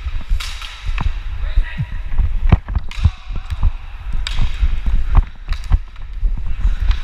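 Inline hockey skates striding on a sealed concrete rink floor, with frequent sharp knocks of stick and puck against the floor, heard from on the skating player's body over a steady low rumble.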